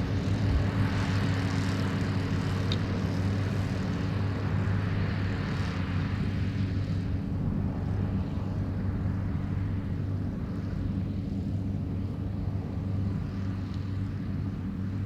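New Holland TM155 tractor engine running steadily with a Claas Variant 385 round baler working behind it. The higher-pitched noise dies down about halfway through, while the low engine drone carries on.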